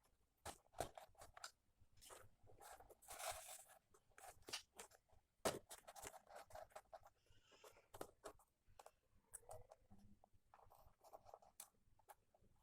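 Faint irregular clicks, crunches and scraping, as of objects being handled close by.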